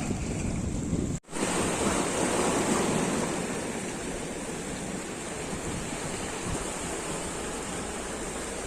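Wind buffeting the microphone over the steady wash of water. The sound drops out briefly about a second in, then the wind and water noise carry on.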